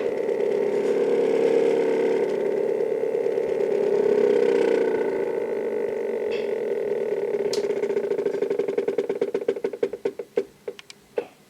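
Stepper motor driving an HO-scale model turntable: a steady whine that, over the last few seconds, slows into separate ticking steps that spread further apart and then stop as the bridge ramps down to a halt.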